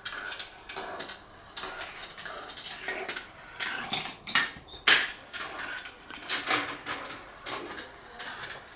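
Steel marbles rolling along GraviTrax plastic rails and dropping through plastic track tiles: a stream of irregular clicks and clacks, the loudest strikes coming in the middle.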